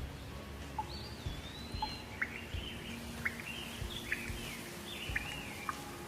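Birdsong: a string of short whistled notes and chirps that slide up and down in pitch, over steady background noise with a few low knocks.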